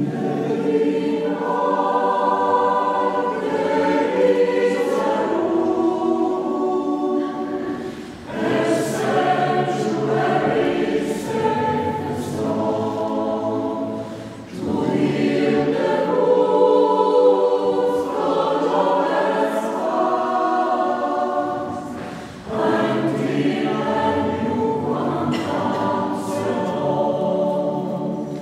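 Choir singing, in long phrases of about six to eight seconds with short breaths between them.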